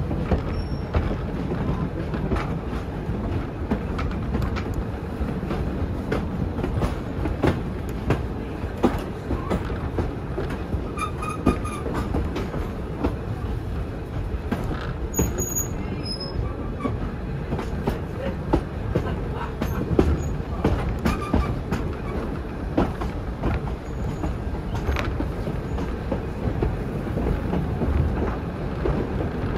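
Heritage passenger carriages rolling on the track behind a steam locomotive, a steady rumble with frequent clicks as the wheels cross rail joints. A few short high squeals of wheels on the curve come around the middle.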